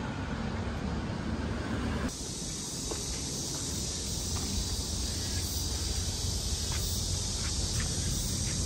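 Outdoor street ambience: a steady hiss over a low traffic rumble. About two seconds in, the sound changes abruptly to a brighter, steady high hiss.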